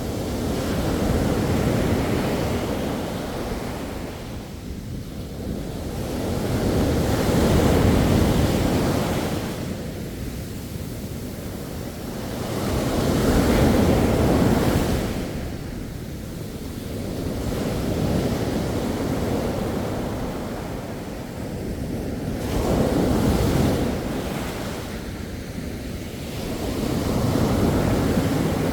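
Sea waves breaking on a beach, the surf swelling and falling back in slow surges about every five to six seconds.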